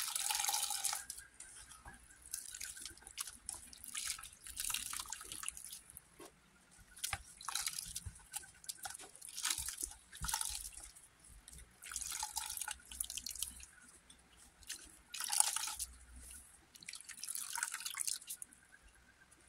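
Hands squeezing wet grated coconut, squelching, with milk dripping and splashing back into the bowl in repeated bursts about every two seconds: coconut milk being pressed out by hand.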